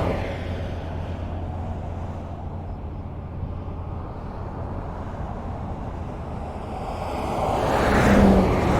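Highway traffic: a steady rush of tyre and engine noise with a low hum. A vehicle that has just passed fades away at the start, and another builds up and passes close by near the end.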